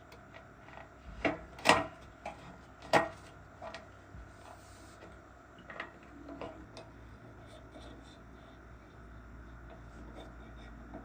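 A handful of sharp knocks and clunks, the loudest two close together about two seconds in and another a second later, with lighter rubbing and scraping sounds between them.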